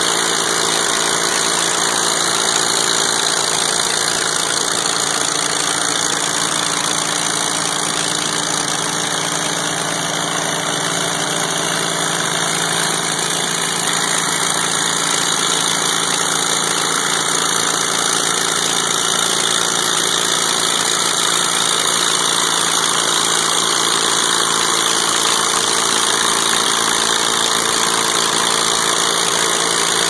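Briggs & Stratton I/C 18.5 hp twin-cylinder engine running steadily with no muffler, loud enough to distort the recording, on a test run of a homemade wood chipper whose disc it drives.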